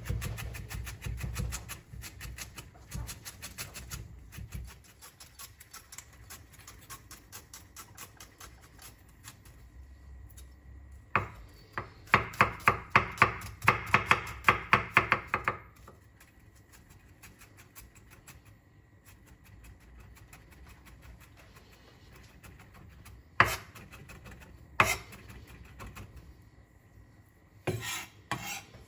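Kitchen knife finely chopping onion on a cutting board: a steady stream of quick chops, a louder, faster run of chopping about a third of the way in, then lighter strokes and a few separate sharp knocks near the end.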